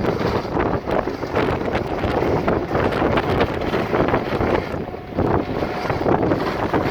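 Wind at the sea shore buffeting the microphone: a dense, continuous rushing noise that flickers rapidly in strength.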